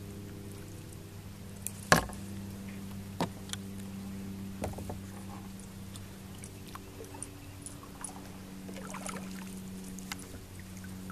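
Knocks and light clicks on a kayak, the loudest a sharp knock about two seconds in, over a steady low hum.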